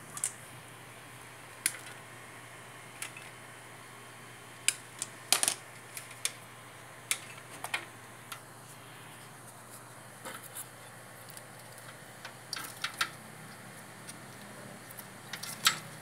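Light metallic clicks and taps at irregular intervals, a dozen or more, from tools and parts being handled on an air-conditioner condenser unit, over a faint steady hum.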